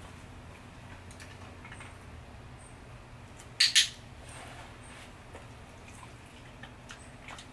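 Handheld training clicker pressed and released, a sharp double click about three and a half seconds in, marking the dog's nose touch on the target stick.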